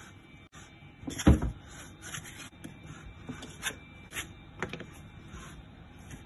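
Hands handling bread dough on a floured wooden counter: one heavy thump on the wood about a second in, then a few light taps and soft rubbing.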